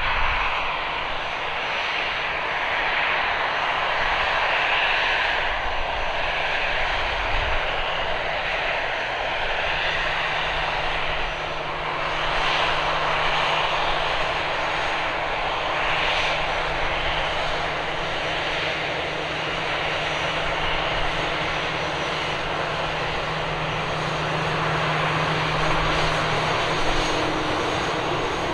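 Jet airliner's engines running at taxi power: a steady rushing whine with a low hum beneath it.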